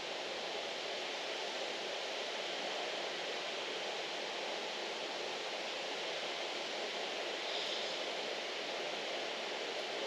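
Steady rain falling on tiled roofs and garden trees, an even, unbroken hiss.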